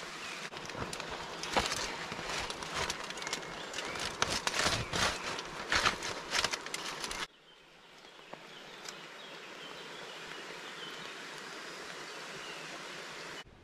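Aluminium foil sheet crinkling and crackling as hands press and shape it around the top of a tripod, in dense irregular spurts. About seven seconds in it cuts off abruptly to a steady outdoor hiss with faint bird chirps.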